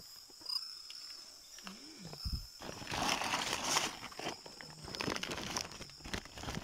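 Woven plastic sack being handled and opened, its stiff fabric rustling and crinkling, loud and continuous from about three seconds in.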